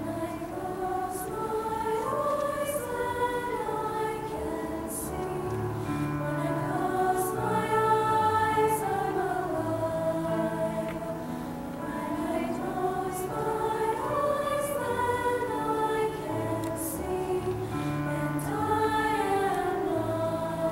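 Female choir singing in harmony, several voice parts moving together in rising and falling phrases.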